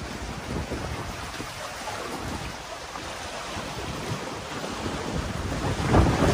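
Wind buffeting the microphone over the wash of sea waves against a rock-and-concrete breakwater, in an uneven, gusty rush that swells loudest near the end.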